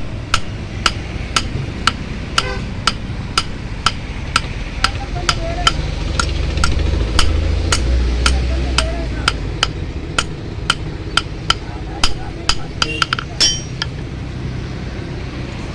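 Blacksmith's hammer striking hot metal on an anvil in a steady rhythm, about two blows a second, with a few quicker strikes just before the hammering stops near the end. A steady low rumble runs underneath.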